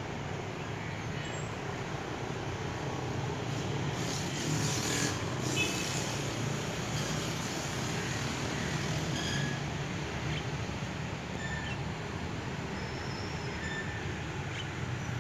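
Steady outdoor background noise with a low rumble, a few short high chirps scattered through, and a brief louder hiss about four to six seconds in.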